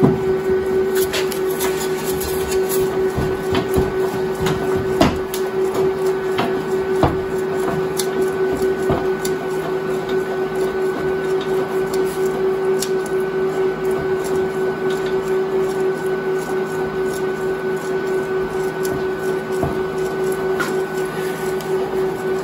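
A steady machine hum at one constant pitch, with scattered sharp metallic clicks and taps, mostly in the first several seconds, as locking pliers work a seized, rusted blade screw back and forth in a cast-iron bottom blade block.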